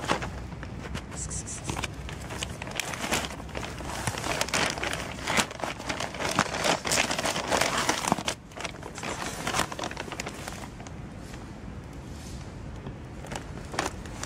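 Plastic packaging crinkling and rustling with scattered small clicks, busiest in the first half and thinning out after about eight seconds: cat food being unwrapped.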